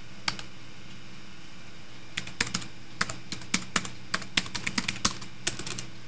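Typing on an HP dv8000 laptop keyboard: a lone key click just after the start, then a quick, irregular run of keystrokes from about two seconds in as a terminal command is typed.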